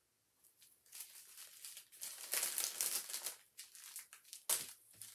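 Small plastic zip-lock bags of diamond painting drills crinkling and rustling as they are handled and sorted, with a sharper click near the end.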